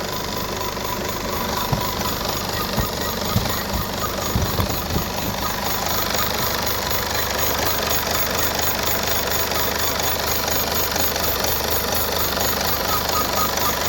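Citroën DS5 2.0 HDi four-cylinder diesel engine running steadily, with a few irregular low thumps between about two and five seconds in. The owner's complaint is an engine that shakes and sends a strange sound into the cabin.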